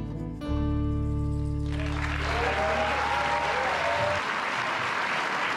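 A bluegrass band's held final chord rings out and stops, and from a little under two seconds in an audience applauds steadily.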